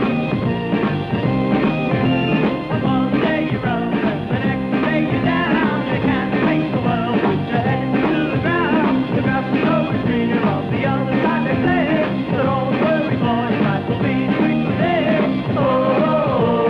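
Psychedelic rock band playing, with electric guitar, bass and drums keeping a steady beat; a wavering melody line, likely singing, comes in near the end.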